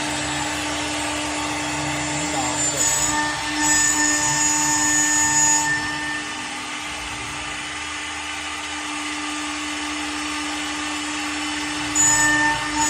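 Single-head CNC machine running: a steady hum throughout, with a louder, higher whine joining in from about three to six seconds in and again near the end.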